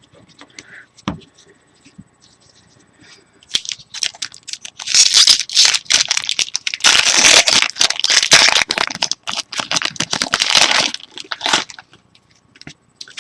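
A trading-card pack's wrapper being torn open and crinkled: a loud crackling rustle from about four seconds in until about eleven seconds. A few small clicks and rustles come before it.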